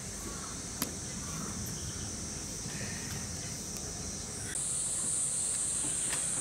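Cicadas droning steadily in a high, even buzz that jumps higher and louder about four and a half seconds in. A single sharp click about a second in.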